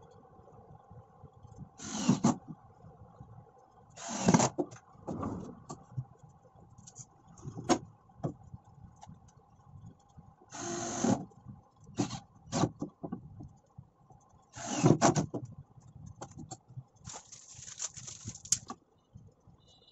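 Cordless drill/driver driving screws into plywood in short bursts, about five times, fixing metal ball-bearing drawer slides, with small metallic clicks and rattles of the slides being handled between the bursts. A faint steady hum runs underneath.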